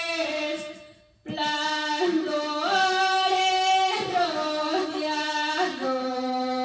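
A woman singing a praise song solo into a microphone, holding long notes. She breaks off briefly about a second in, then sings on.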